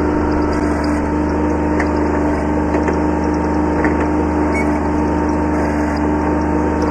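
Kubota B7100 subcompact tractor's three-cylinder diesel engine running at a steady speed, with a few faint light clicks over it.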